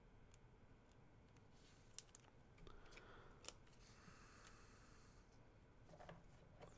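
Near silence, with a few faint clicks and some light rustling.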